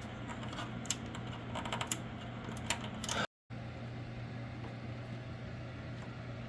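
Small clicks and taps from hands handling computer parts and cables inside a PC case, over a steady low hum. The clicks stop after about three seconds, leaving only the hum.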